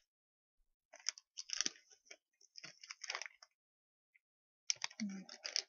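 Wrapper of a Hershey's Cookies 'n' Creme chocolate bar crinkling as it is peeled open, in rustling bursts with a pause of about a second before the last stretch.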